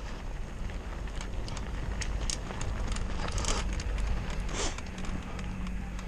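Mountain bike rolling over a loose gravel trail: tyres crunching on stones, with clicks and rattles from the bike and a low wind rumble on the microphone. Two longer hissing scrapes of gravel come about three and a half and four and a half seconds in.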